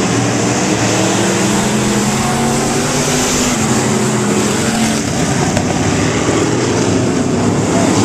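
A pack of pure stock dirt-track race cars' engines running together as they lap the oval, a loud steady drone of several overlapping engine notes.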